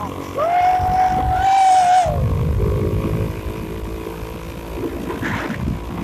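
Wind rushing over the phone's microphone and the low rumble of a moving motorcycle. About half a second in, one rider lets out a long held 'whoo' call, sliding up at the start and dropping off after about a second and a half.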